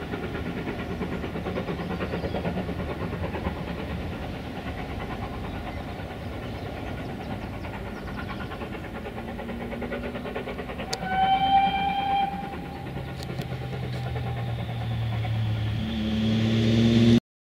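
Steam locomotive hauling its train away, its exhaust beats and running noise steady and slowly fading with distance. About eleven seconds in it sounds one steady whistle lasting about a second and a half. Near the end a low steady drone swells up and grows loud.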